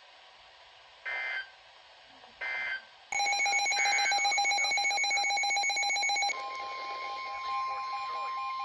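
Weather radio alert: two short data-burst tones, then from about three seconds in a loud, rapidly pulsing electronic alarm beep, joined about six seconds in by a steady, single-pitched warning alarm tone. It signals that a new weather warning is about to be broadcast.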